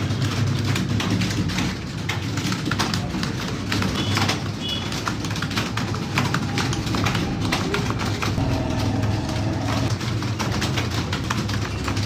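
Many computer keyboards clattering at once as a room of students types against the clock in a typing-speed test: a dense, irregular patter of key clicks over a steady low hum.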